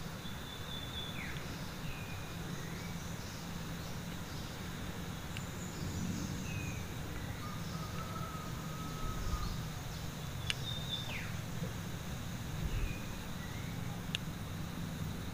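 Steady low background rumble with scattered short, falling bird chirps, and two sharp small clicks about ten and fourteen seconds in as the carburetor's lower cover is handled.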